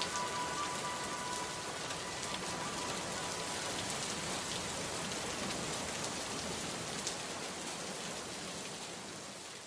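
Steady rain falling, with scattered drops hitting a hard surface. Faint held tones die away in the first couple of seconds, and the rain fades out near the end.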